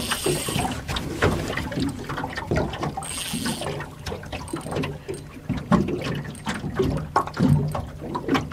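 Water lapping and splashing against a small aluminium boat, with many irregular knocks and two brief hissing rushes, one at the start and one about three seconds in.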